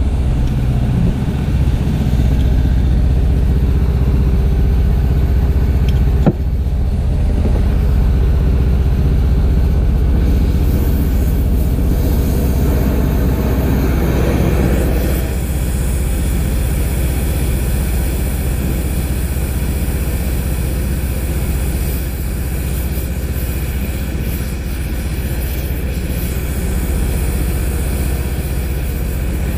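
An engine runs steadily with a low rumble, and a single sharp click sounds about six seconds in. From about eleven seconds in, the steady hiss of an oxy-fuel torch flame joins it as the flame heats a hydraulic cylinder.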